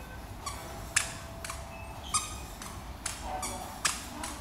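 A toddler's squeaky shoes chirping with each step as he walks on a tiled floor: a series of short, sharp, high squeaks about two a second, uneven in spacing.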